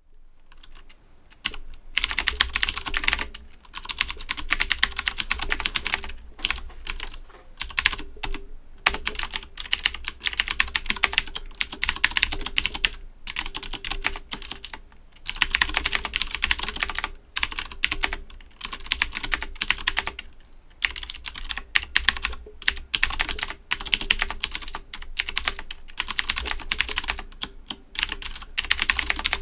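Owltech OWL-KB109BM II mechanical keyboard with Cherry MX Blue switches being typed on fast, with clicky keystrokes. The typing comes in runs of a few seconds broken by brief pauses.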